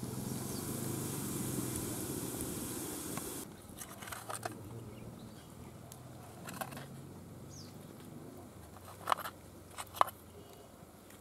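A steady hiss from a large aluminium pot steaming on a wood fire. About three and a half seconds in it gives way to a few sharp metallic clinks and scrapes of a steel spoon against an aluminium steamer plate as steamed vadas are lifted out. The two clinks near the end are the loudest.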